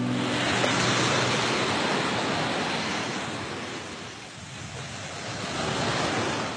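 Ocean surf: waves breaking and washing up a sandy beach, the wash swelling, easing off about four seconds in and building again near the end.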